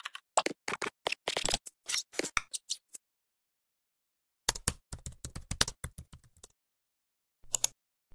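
Keyboard typing sound effect: a fast run of key clicks, then dead silence for about a second and a half, then a second run of quick clicks, and one last short click near the end.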